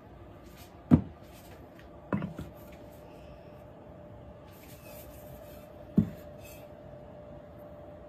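Heavy plaster slip-casting mold knocking against a bat on a banding wheel as it is set down and handled: three sharp knocks, about one, two and six seconds in.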